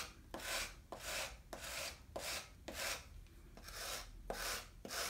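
Surform rasp scraping across the bottom of a clay bowl in short, even strokes, about two a second, shaving the clay to shape the base.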